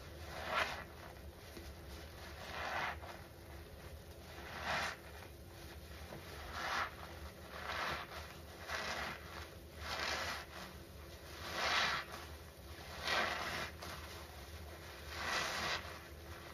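Small soap-soaked foam sponges squeezed in gloved hands, squishing wet suds: a squelch about every one to two seconds.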